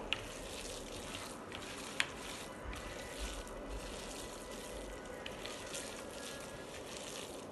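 Hands squeezing and kneading raw minced chicken filling in a plastic bowl: a steady, soft wet squishing, with one sharp click about two seconds in.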